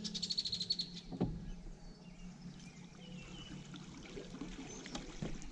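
Electric trolling motor on a small aluminium boat, running with a steady low hum as water washes and trickles past the hull. A quick run of rapid ticks comes at the very start, and a single knock about a second in.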